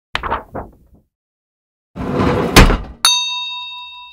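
End-screen sound effects: a quick run of knocks, then a whoosh that ends in a hard hit, then a bright bell ding that rings on and fades.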